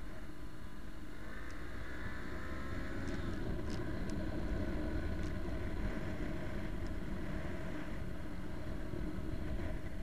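Motorcycle riding at road speed: the engine runs steadily under a constant rush of road and wind noise, its pitch shifting slightly, with a few light ticks.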